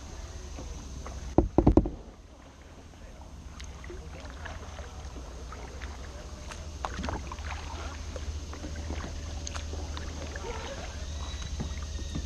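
Plastic sit-on-top kayak being paddled on calm water: the paddle dipping, splashing and dripping over a low steady rumble. About a second and a half in, a quick run of four or five knocks on the hull.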